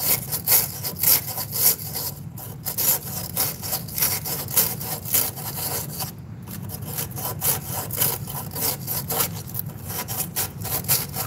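Sandpaper rubbing back and forth on a refrigerant tube in quick, repeated strokes, scouring the tube to bare metal so the braze will take; the last braze failed because the joint was dirty. A steady low hum runs underneath.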